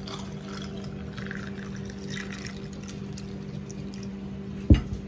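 Cherry juice poured into a glass of ice cubes, splashing over the ice, with a steady low hum underneath. A single sharp knock near the end.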